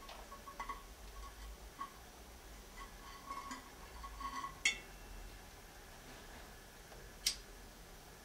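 Faint clicks and clinks of small hard objects being handled, with two sharper clicks about four and a half and seven seconds in.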